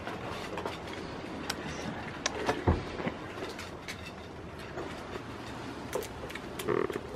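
Goat eating feed from a bowl: irregular crunching clicks and knocks against the bowl, with one louder knock about three seconds in. A short animal call comes near the end.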